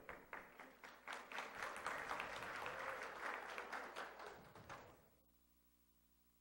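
Audience applauding faintly, the clapping dying away about five seconds in, then near silence.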